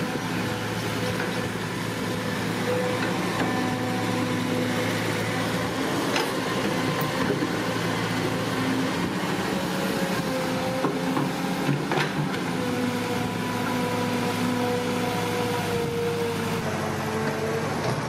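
Electric drive motors and gearboxes of a Huina RC excavator whining steadily as it works its boom and bucket and moves on its tracks, the whine dropping out and returning as the functions start and stop. There are a couple of sharp clicks.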